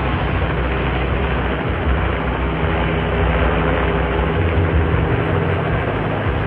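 Light helicopter flying low overhead, its rotor and engine loud and steady.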